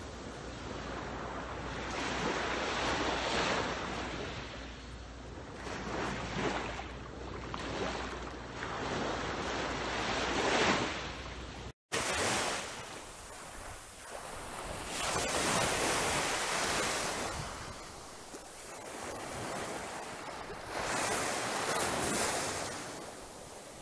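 Small waves breaking and washing up a sandy beach, the surf swelling and fading every few seconds, with wind buffeting the microphone. The sound drops out for a moment about halfway through.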